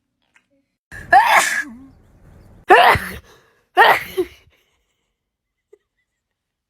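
Three sneezes, about a second apart.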